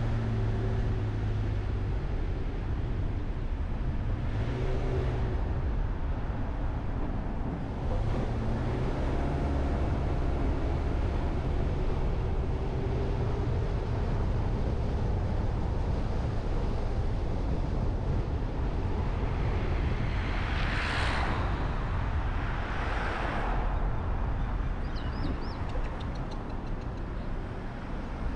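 Steady road and engine noise from a car driving on town streets, with two brief louder swells of noise about three-quarters of the way in, as other vehicles pass close by.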